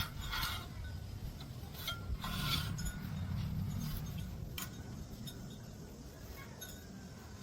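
A few short metallic clinks and knocks of things being handled, over a low rumble that fades toward the end.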